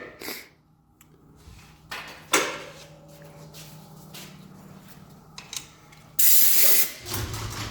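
A few knocks and clicks of the air filter being handled, then a loud burst of compressed air about half a second long from a blow gun blowing out the filter, near the end; a low rumble starts just after it.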